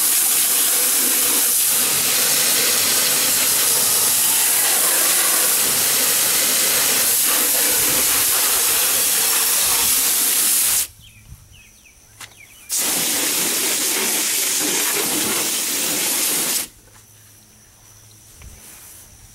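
Water spraying hard from a hose nozzle onto an air-conditioner coil, a loud steady hiss that cuts off about eleven seconds in, starts again about two seconds later, and stops suddenly a few seconds before the end.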